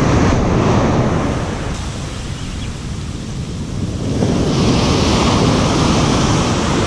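Ocean surf breaking and washing up the beach: the wash eases off in the middle, and another wave breaks about four seconds in. Wind buffets the microphone with a low rumble underneath.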